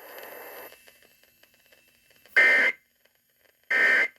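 Emergency Alert System end-of-message data bursts: after a short stretch of hiss, two short buzzy digital tone bursts about 1.3 seconds apart. This is the EOM code that closes the alert.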